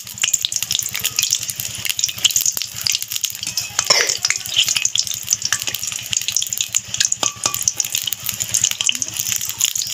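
Samosas wrapped in papad deep-frying in hot oil in a metal kadai, with a steady, dense crackling sizzle. A metal slotted spatula scrapes and clinks against the pan as they are turned, most clearly about four seconds in.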